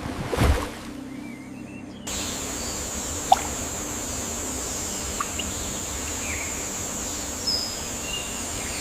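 Rainforest ambience: a short rushing sound about half a second in, then from about two seconds a steady high hiss with a few short bird chirps scattered through it.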